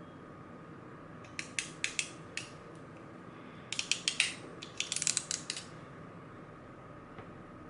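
Sharp metallic clicks from a hand tool working on power cables: a short run about a second and a half in, then a denser run from about four to five and a half seconds. A faint steady tone sounds underneath.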